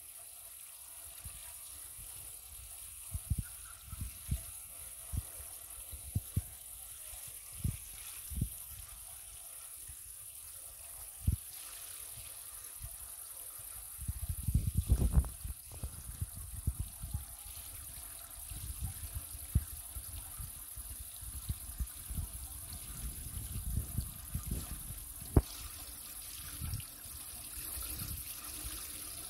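Water trickling steadily in a garden pond, with scattered low thumps and rumbles that are densest about halfway through.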